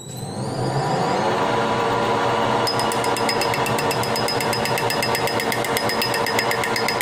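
Metal lathe starting up, its motor and four-jaw chuck spinning up with a rising whine, then running steadily. From about three seconds in, a fast, even ticking joins the running sound.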